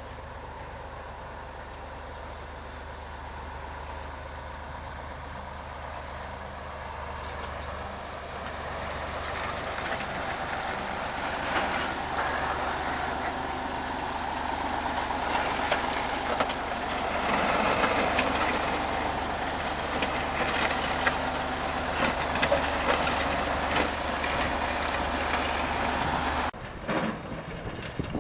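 GS-14 motor grader working a dirt road: its diesel engine runs steadily under load, with clattering and scraping noise from the machine at work. It grows steadily louder through the first half. The steady low drone drops out abruptly near the end.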